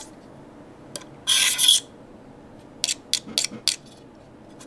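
Razor-knife blade scraping across the green enamel-coated steel case of a DI box. One loud, bright scrape comes about a second in, then a quick run of short scratches near the end.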